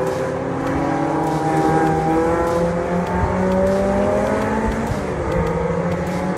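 Several race car engines running hard on the circuit, their overlapping notes rising steadily in pitch as the cars accelerate.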